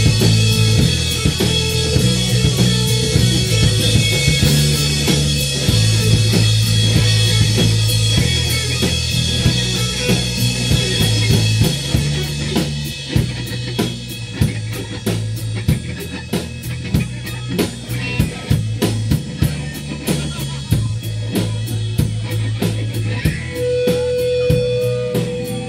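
Live rock band playing an instrumental passage without vocals: electric guitar and drum kit over low bass notes that change every few seconds, with the drum hits coming through steadily in the second half. A short held tone sounds near the end.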